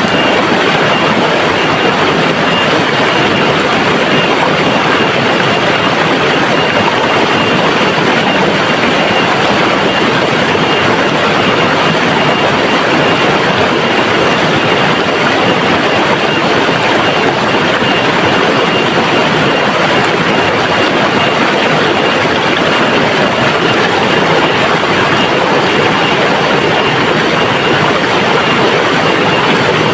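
River water flowing and rushing, a loud, even, unbroken wash of noise.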